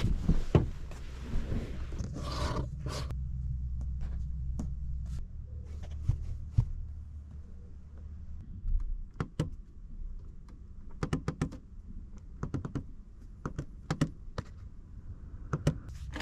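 Clicks and light knocks from car interior fittings being handled, coming in quick clusters in the second half, over a low steady rumble that fades out about halfway.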